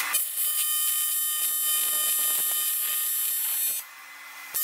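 AC TIG welding arc on cast aluminum, a steady high buzz as weld is built up over a crack with filler rod. The arc cuts out about four seconds in, then strikes again briefly at the very end.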